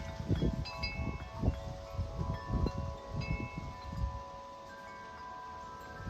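Large 50-inch Corinthian Bells wind chime, its deep tubes struck again and again by strong gusts and ringing on in long overlapping tones, with gusty wind buffeting the microphone. The gusts ease about four seconds in while the tubes keep ringing.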